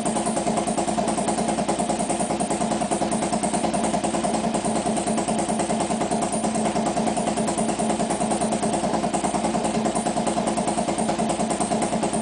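Harley-Davidson V-twin engine idling steadily with an even, pulsing beat as it warms up.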